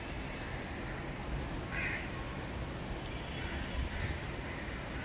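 Crows cawing a few times, the clearest caw about two seconds in, over a steady low outdoor rumble.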